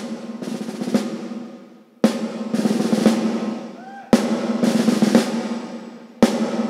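Live drum kit playing a slow, spaced pattern: a crash cymbal and drum hit about every two seconds, each left to ring out and fade, with lighter snare and tom strokes between them over a low held note from the band.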